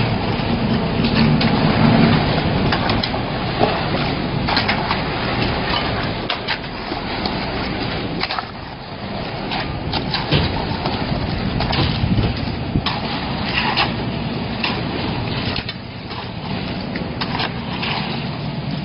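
Diesel concrete mixer pump running, its engine hum under a dense, irregular crackle and rattle of cracks and knocks.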